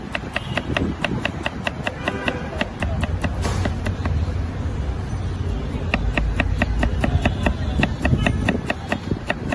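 Kitchen knife chopping cucumber on a wooden cutting board: quick, even knocks of the blade on the wood, about three or four a second, with a pause of a couple of seconds midway before the chopping picks up again.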